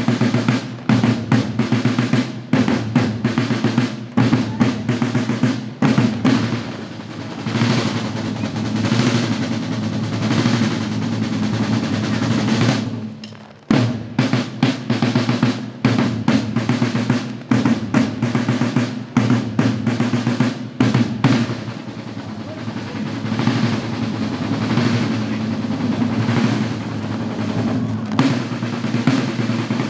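Parade drums of a flag-waving troupe's musicians playing rolls and beats together, with a short break about halfway through before the drumming starts again.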